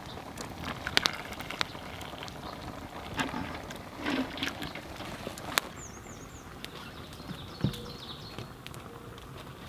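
A steel stock pot and a small metal cup being handled, with a few sharp clanks and knocks and some scraping, over the rustle of dry leaves.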